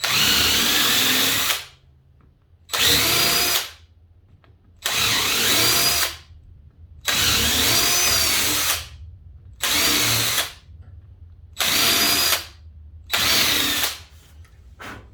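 Power drill boring out old hinge screw holes in a wooden door to take a dowel, run in seven short bursts of one to two seconds each. Its pitch dips and recovers within each burst as the bit loads up in the wood.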